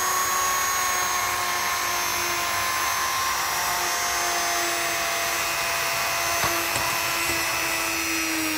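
Dremel Multi rotary tool running steadily with its bit against the brass boiler of a Mamod toy steam engine, cleaning dirt off the metal. A steady high whine whose pitch sags slightly as the bit is pressed on.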